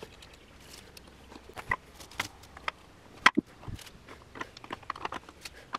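Sharp chunks of broken rock clicking and knocking against each other and a clay mold as they are packed in by hand, in a string of irregular taps with one louder knock a little past the middle.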